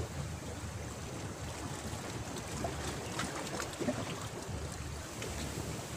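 Wind rumbling on the microphone over sea water lapping against shore rocks, with a few faint small ticks near the middle.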